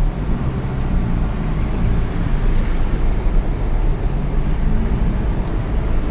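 Car driving on the road, heard from inside the cabin: a steady engine drone with low road and tyre rumble.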